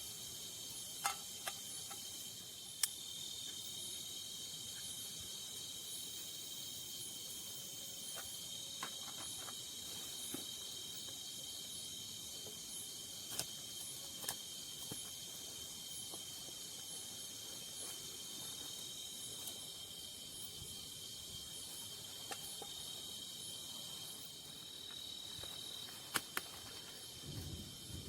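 Night chorus of crickets and other insects: a steady high-pitched trill with a faint pulsing above it. A few sharp clicks stand out now and then, twice close together about a second in and again near the end.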